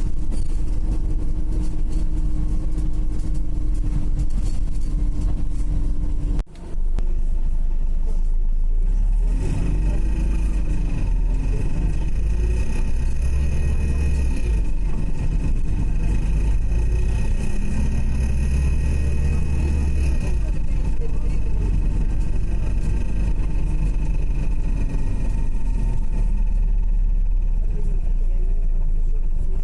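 Interior of a Wright Gemini 2 hybrid double-decker bus under way: a deep drivetrain rumble with a steady whine. About nine seconds in, several high-pitched steady tones start, and a lower whine glides up and down with the bus's speed. This is the unexplained weird noise the owner is asking about.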